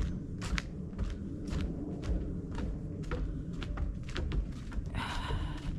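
Footsteps of people walking along a hiking trail, a steady run of irregular steps.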